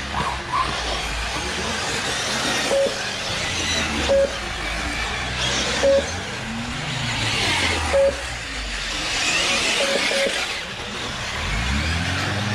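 Radio-controlled off-road race cars running around the track, their high motor whine rising and falling as they accelerate and brake. Six short beeps of one pitch cut through, the kind a lap-timing system gives as a car crosses the line. A deeper engine sound swells and fades twice.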